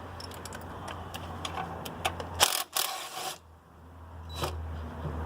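Sharp metal clicks and clinks of hand tools working on bolts, likely a socket ratchet, with a dense burst of clicking lasting about a second near the middle, over a steady low hum.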